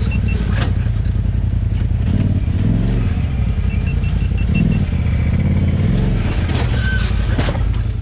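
Polaris side-by-side UTV engine running steady and low while the chassis clatters and knocks over rough ground, with squeaks from the suspension. The squeaking comes from shock bushings worn out after 7,000 miles that need replacing.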